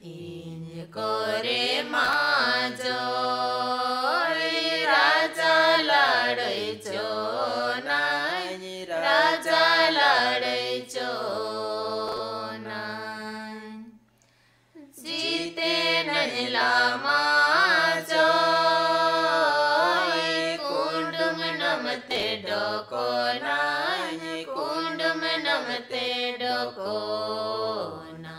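Singing of a Khadia durang song: a melody that glides up and down in two long phrases, with a short pause about halfway through.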